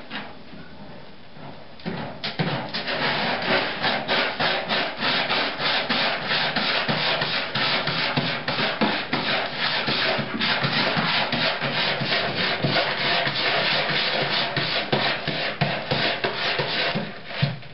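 A cat digging hard in the litter inside a covered plastic litter box: fast, rapid scratching and scraping strokes, about four a second, that start about two seconds in and stop just before the end.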